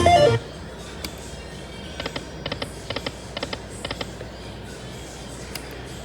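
Lightning Link Moon Race slot machine's electronic game sounds: a short, loud pitched tone at the very start, then repeating electronic ticks, about two to three a second, as the reels spin.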